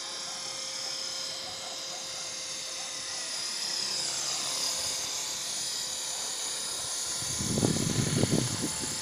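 Radio-controlled model helicopter flying overhead: a steady high-pitched whine from its motor and rotor, dipping in pitch partway through. Near the end comes a short burst of louder, low rumbling noise.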